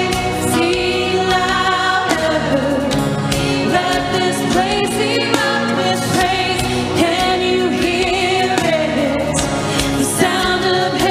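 Live worship band performing a praise song: voices singing the melody over acoustic guitar and drums.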